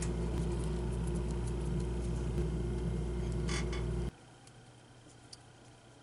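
Steady low background hum with faint ticks of small plastic and carbon-fibre quadcopter parts being handled. The hum cuts off suddenly about four seconds in, leaving near silence with a few faint ticks.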